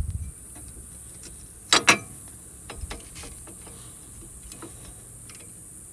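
Two sharp knocks in quick succession about two seconds in, with a few faint scattered ticks over a steady high hiss.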